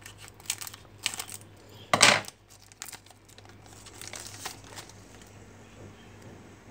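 Foil trading-card pack wrapper being cut with scissors and pulled apart by hand, crinkling in sharp crackles with the loudest about two seconds in, then softer rustling.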